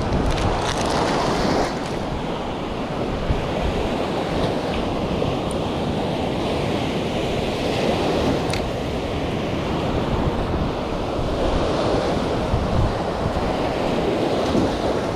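Mediterranean surf breaking and washing up a sandy beach in a steady rush, with wind buffeting the microphone.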